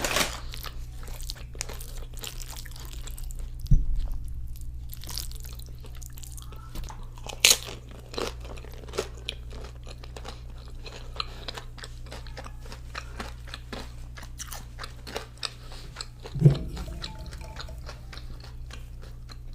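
A person chewing and crunching Chipotle food close to the microphone, in quick irregular crackles over a steady low hum, with a few louder knocks about four seconds in, near the middle and near the end.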